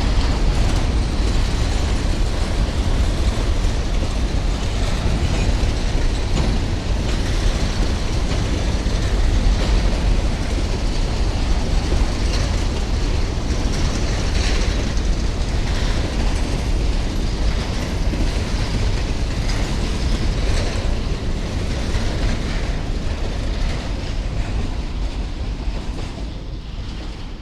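Train wagons rolling past with a heavy rumble and the clack of wheels over rail joints. The sound fades away near the end.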